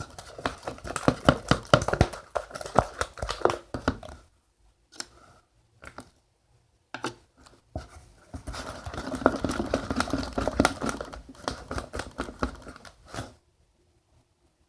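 Sticky borax-activated slime being stirred in a bowl: rapid wet clicking and crackling as it pulls and sticks, in two bouts of about four seconds with a short pause and a few single clicks between.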